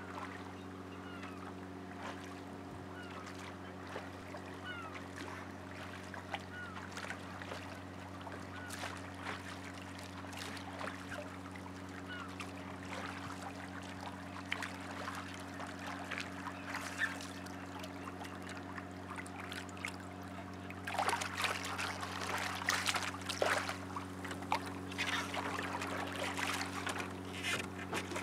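Oars working in a small rowing dinghy's oarlocks, with short squeaks repeating about once a second, then knocking and clatter in the last several seconds as the dinghy comes alongside the boat. A steady low hum runs underneath throughout.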